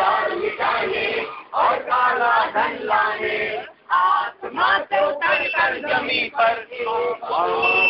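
A group of men and women singing a song together, in phrases with short breaks between them, over a steady low note.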